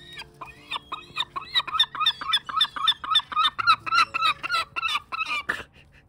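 A gull calling in a rapid run of short, clear notes, about four a second, for about five seconds.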